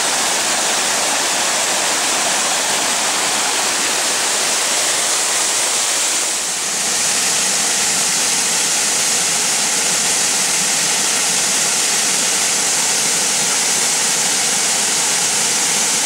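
Steady rush of water from the Weißbach waterfall and the mountain torrent below it running over rock, with a slight dip in level about six and a half seconds in.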